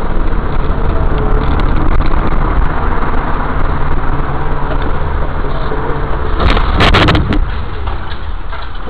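Dashcam audio from inside a moving car: steady engine and road noise. About seven seconds in comes a short, loud crunching clatter, the sound of a collision on the road ahead.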